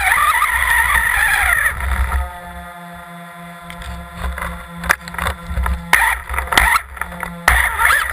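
An electric RC buggy's motor whining from an onboard camera as it drives over rough grass. The pitch rises and falls with the throttle for the first couple of seconds, then settles into a steadier tone with a few sharp knocks as the chassis bumps along.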